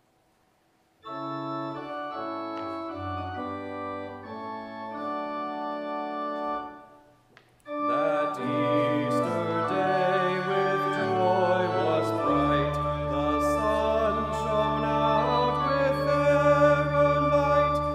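Church organ playing a hymn introduction in sustained chords, starting about a second in and pausing briefly about 7 s in. Then the processional hymn begins, a cantor's voice singing over the organ, with a deep held pedal bass entering about 12 s in.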